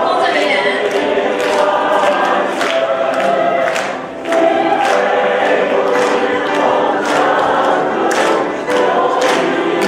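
A choir singing together, many voices in sustained sung phrases.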